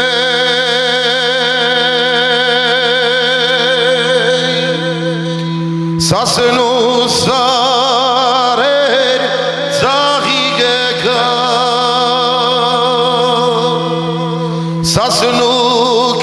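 A man sings into a microphone in long, ornamented held notes with wide vibrato, over a steady low drone. New phrases begin about six, ten and fifteen seconds in.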